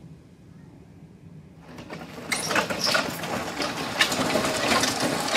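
Heavily loaded super yoke being lifted and held, its steel frame and load rattling and clattering; the noise swells in about two seconds in and stays loud.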